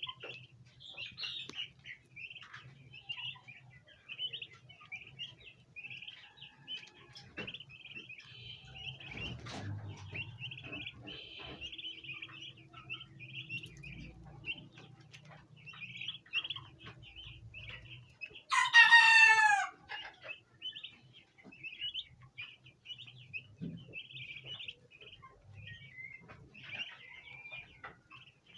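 A flock of bronze turkey poults chirping: many short, high peeps overlapping without pause. About two-thirds of the way through, an adult fowl gives one loud call lasting about a second and a half, the loudest sound here.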